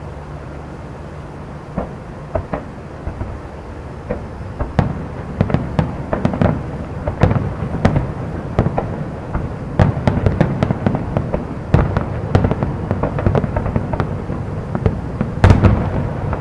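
Fireworks display: aerial shells bursting with sharp bangs, a few scattered ones over a steady low hum at first, then from about four seconds in a dense, irregular barrage of many bangs a second, loudest near the end.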